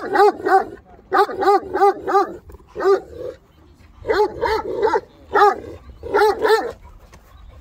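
A dog barking, about fifteen barks in short runs of one to four at about three a second, with short pauses between runs, stopping shortly before the end.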